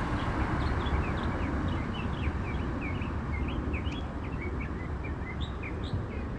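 A songbird singing a rapid, continuous run of short, high chirping notes, over a steady low background rumble.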